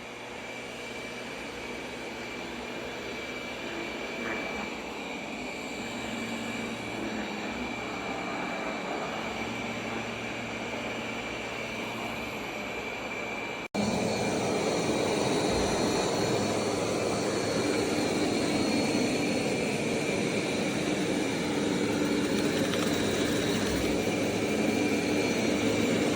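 Roborock S8 Pro Ultra robot vacuum running: a steady motor and suction hum with a thin high whine. It gets louder after a cut about halfway through.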